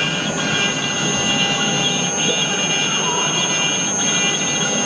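Mini CNC router's spindle running steadily with a high whine while the bit engraves an olive held in a rotary axis.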